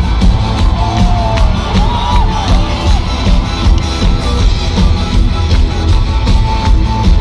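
Live rock band playing loudly through an arena sound system, with keyboards, heavy bass and a steady drum beat, and the crowd cheering and shouting over it.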